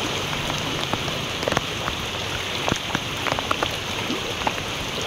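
Heavy typhoon downpour falling onto floodwater, a steady hiss with scattered sharp ticks of individual drops.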